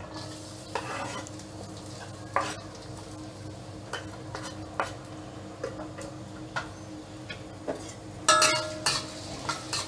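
Sliced garlic and shallots scraped off a wooden cutting board with a knife into hot oil in a wok, then sizzling gently as they begin to sauté. Scattered light knocks of the knife and board, and a louder ringing metal clatter of utensils near the end.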